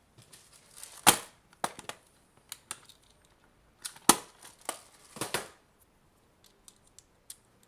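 Irregular sharp clicks and clatters of hard plastic, the loudest about a second in and about four seconds in, from pieces of a cracked-open, sonic-welded AC adapter case being handled and knocked together.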